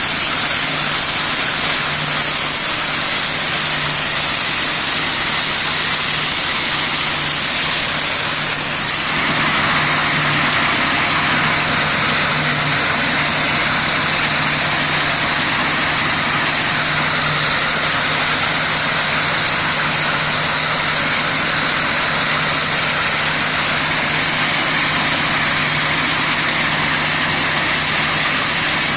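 Dronningborg D880 combine harvester running steadily through barley, a low engine hum under a broad hiss of machinery. About nine seconds in the middle of the sound grows louder and stays so.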